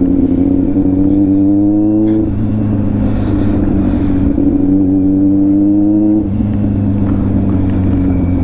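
Superbike engine and exhaust running at steady cruising revs while riding. The pitch creeps up, then steps down about two seconds in and again about six seconds in.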